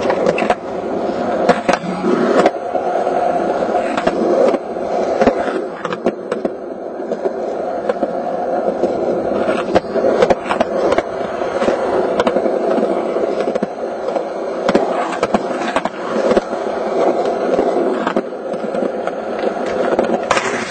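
Skateboard wheels rolling over concrete: a continuous rolling rumble, broken by frequent irregular clicks and knocks.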